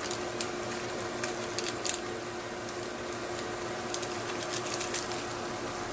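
Onion and spices frying in hot oil in a stew pot, with scattered light crackles over a steady low hum.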